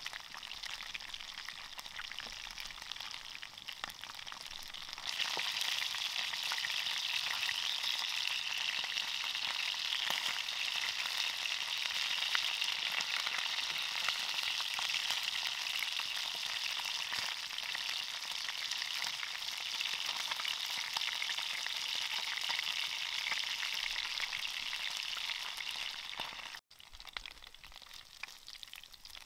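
Pieces of mackerel tuna sizzling and spattering in hot oil in a frying pan, stirred and turned with a wooden spatula. The sizzle grows louder about five seconds in and drops off suddenly near the end.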